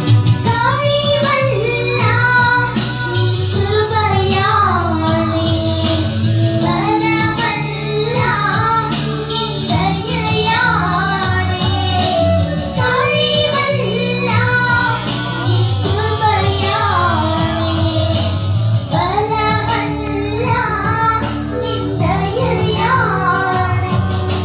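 Two young girls singing a Christian devotional song through microphones, the melody carried continuously over steady low backing notes that change every few seconds.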